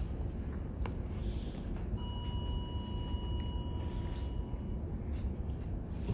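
An elevator's electronic signal beeps in one steady, even tone for about three seconds, starting about two seconds in and cutting off abruptly, over a low steady hum.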